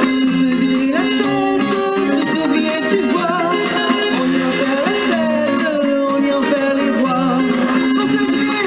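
Live band music: electric guitar accompanying women singing into microphones.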